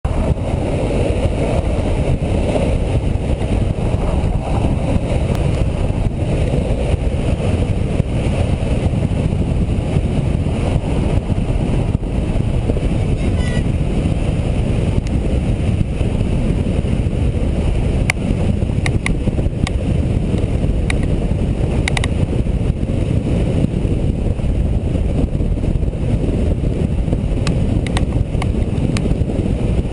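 Steady roar of a longboard's wheels rolling fast down asphalt, mixed with wind buffeting the microphone. A few sharp clicks in the second half.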